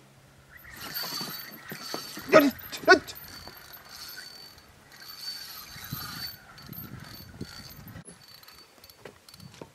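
A spinning reel is cranked to bring a hooked fish in to the dock: a steady whirring with a faint high whine, stopping about six seconds in. A little over two seconds in come two short, loud pitched sounds about half a second apart. Scattered light clicks follow.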